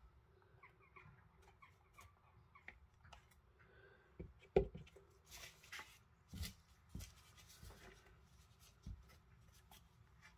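Quiet handling noises of papercraft work: paper being slid and rustled, with scattered light taps and knocks on the desk. The loudest taps come about four and a half and six and a half seconds in.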